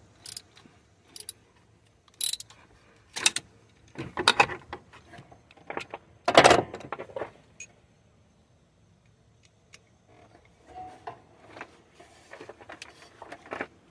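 Metal clinks and clicks of a ratchet and 12 mm socket working on a rusted knock sensor nut that will not yet break loose, in a few separate strokes with the loudest about six and a half seconds in. Softer scraping and handling follow near the end.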